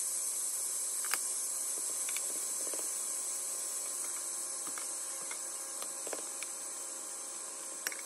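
Rolled egg omelette sizzling steadily in a nonstick frying pan, with a few light clicks of a metal spatula against the pan as it presses and shapes the roll.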